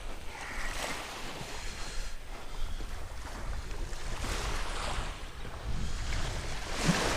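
Wind rumbling on the microphone, with small waves washing on the shore in soft swells.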